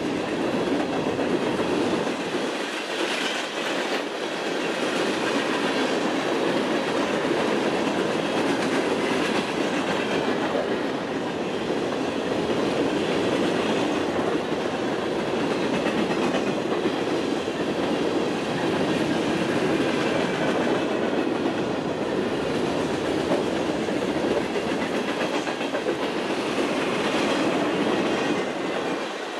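Mixed freight train of boxcars, tank cars and hoppers rolling past, its steel wheels running steadily on the rails.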